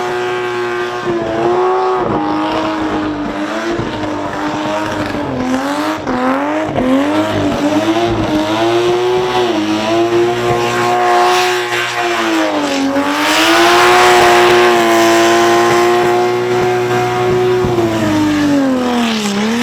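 Supercharged six-cylinder Commodore engine held at high revs through a burnout. The revs dip and climb back several times over the tyre squeal, which is loudest about two-thirds of the way through. Near the end the revs fall away.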